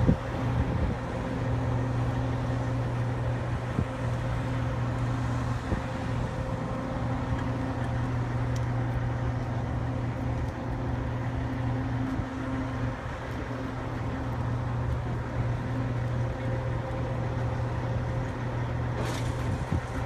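Engine running steadily at idle: a low, even hum with a faint higher tone over it.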